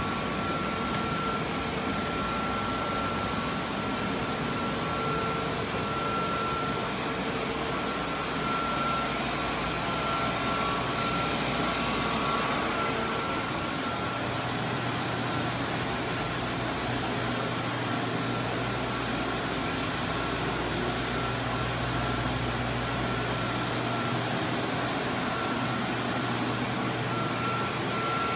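Steady rush of air from water-damage drying equipment running: fans and a dehumidifier. A thin steady whine runs throughout, and a low hum comes in about halfway through.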